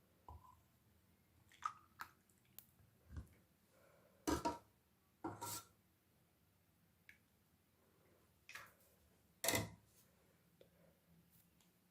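Sparse faint clinks and knocks of a spoon and kulfi moulds being handled as the kulfi mixture is filled into them, with the sharpest knocks about four, five and a half and nine and a half seconds in.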